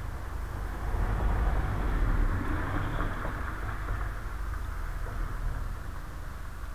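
Road traffic rumble: a passing vehicle swells about a second in, then fades to a steady background hum.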